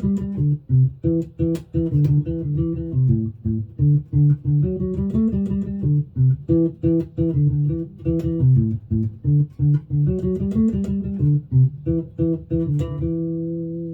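Five-string electric bass, a Hammer mini bass, played through a small Warwick BC10 bass amp: a quick run of plucked notes. Near the end it settles on one held note that is left to ring.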